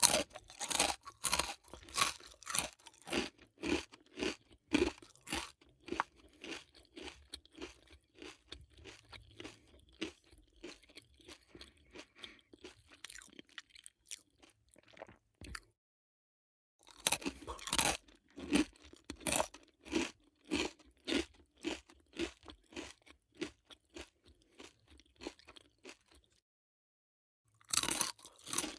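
Close-up crunching and chewing of Chitato potato chips, a steady run of sharp crisp crunches about one to two a second. The chewing stops dead twice, for a second or two each time.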